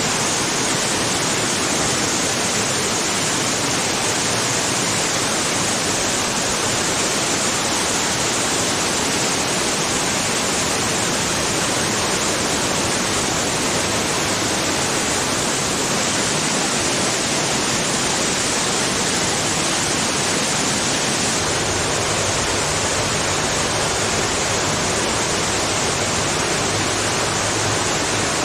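Man-made waterfall at a hotel, water pouring steadily into its pool with a constant rushing hiss.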